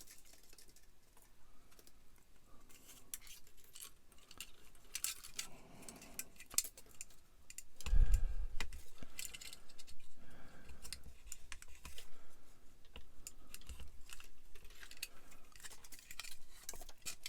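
Small plastic model-kit parts and wires being handled on a workbench: scattered light clicks and taps, with one heavier knock about eight seconds in.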